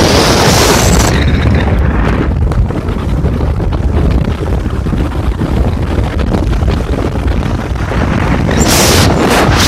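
Wind buffeting the camera microphone at skiing speed, a constant low rumble. Skis hiss across the packed snow, loudest for about a second at the start and again near the end.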